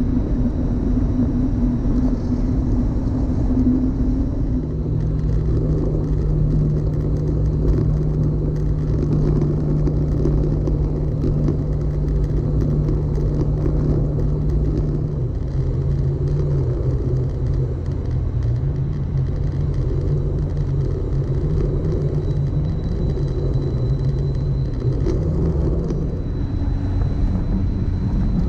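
Vehicle engine running while driving on a dirt road, with steady rumble; the engine note drops about four seconds in and shifts up and down a few more times as speed changes.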